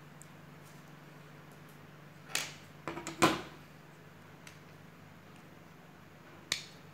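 LEGO bricks handled and pressed together: a few sharp plastic clicks and snaps, a quick cluster of them about halfway through, the loudest among them, and one more near the end.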